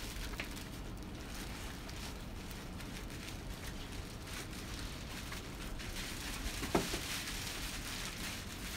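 Clear plastic wrapping rustling and crinkling as a boxed moving-head light fixture is pulled out of its cardboard box and handled. A single knock comes about three-quarters of the way through.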